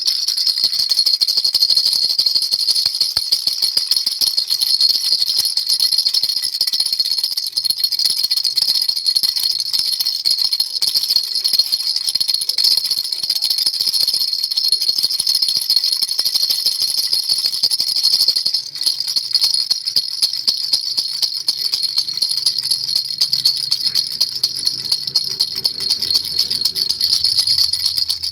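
Baby rattle shaken continuously, a dense stream of fast jingling clicks over a steady high ring. A faint low hum comes in under it about two-thirds of the way through.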